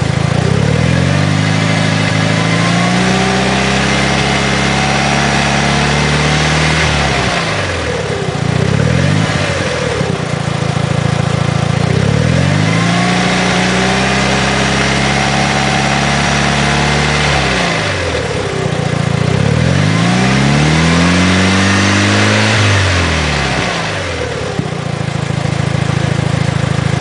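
Turbocharged 2.0 L four-cylinder engine of a 2006 Mitsubishi Lancer Evolution IX, revved up slowly and let back down to idle several times with the clutch engaged. A rattle comes in as the revs die down, which the owner suspects is a failing throw-out bearing.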